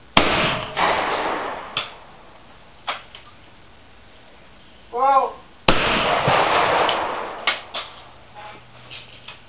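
Shotguns firing at clay targets: a shot with a long echoing tail at the start and a second shot about two seconds later. About five seconds in, a shooter shouts a call for the target and another echoing shot follows half a second later, then a few lighter knocks.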